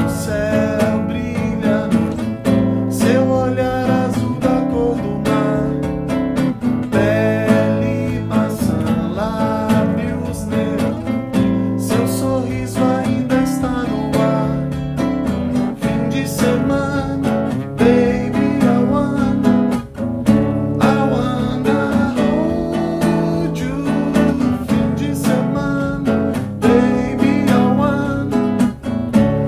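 A man singing to his own acoustic guitar, strumming chords.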